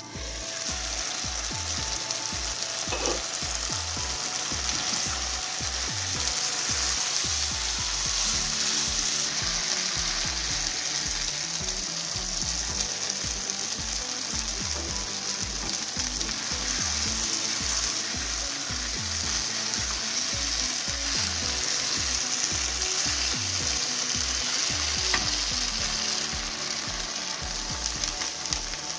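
Chicken pieces in a wet spiced sauce sizzling steadily in a non-stick wok, stirred with a spatula.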